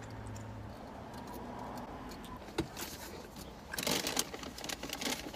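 Aluminium foil taco wrapper crinkling and rustling as it is handled, loudest for about half a second around four seconds in, with a single click a little before.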